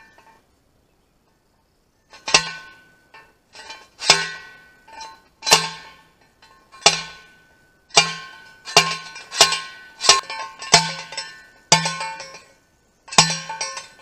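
Steel fence T-post being driven with a manual post driver: about a dozen heavy metal-on-metal strikes, starting about two seconds in and coming roughly once a second, each a sharp clang with a short ringing tail.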